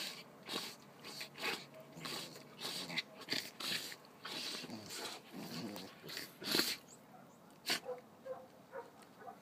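A German Shepherd puppy and a mixed-breed puppy play-fighting, with a run of short growls, snarls and snaps about twice a second. The two loudest come about two thirds of the way through, and faint whines follow near the end.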